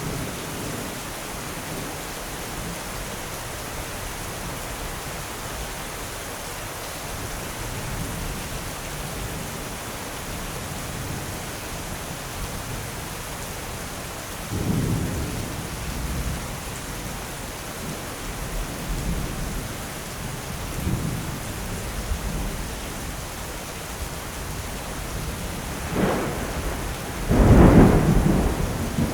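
Steady rain falling in a thunderstorm, with low rolls of thunder rumbling in about halfway through and again a few times after, and the loudest, sharper thunderclap near the end.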